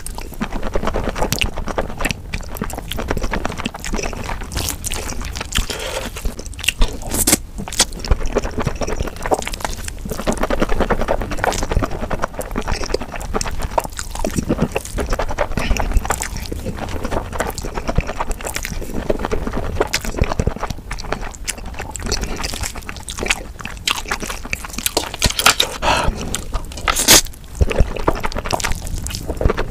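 Close-miked slurping and chewing of thin noodles in thick spicy sauce: a steady stream of wet mouth clicks, squelches and sucking slurps, played back at double speed.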